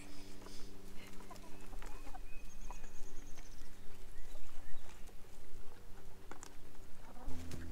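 Hens clucking around a Great Pyrenees puppy, with scattered small clicks and scrapes as the puppy licks and chews inside a red plastic container, under a steady low hum. A louder low drone starts near the end.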